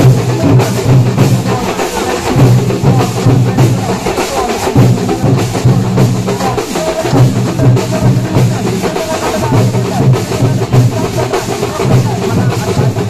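Loud live band music with fast, dense drumming over a deep bass line that drops out briefly every few seconds.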